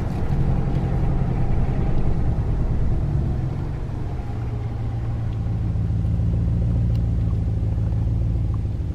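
Ram pickup truck driving, heard from inside the cab: a steady low engine hum over road noise, the engine note settling a little lower about four seconds in.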